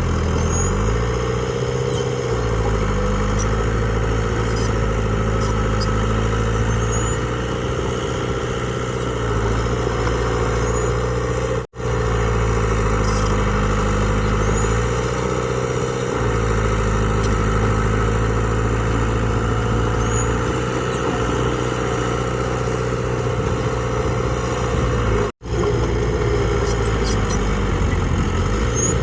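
Heavy diesel engine of earthmoving machinery running steadily, its pitch rising and falling slightly with load. The sound cuts out for an instant twice, about 12 and 25 seconds in.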